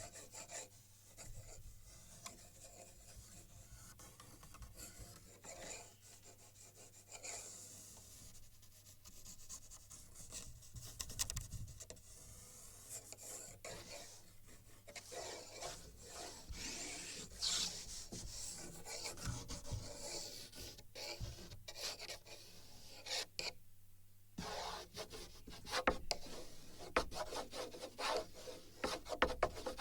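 Drawing strokes on a wooden board, picked up by sensors on the board: irregular rubbing and scratching that varies with the pressure of each stroke, over a faint steady hum. The strokes stop briefly a little past three-quarters through.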